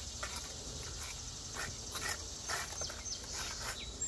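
Steel tuck pointer scraping mortar off a hand trowel and packing it into brick mortar joints: short, irregular scrapes and taps over a steady high hiss.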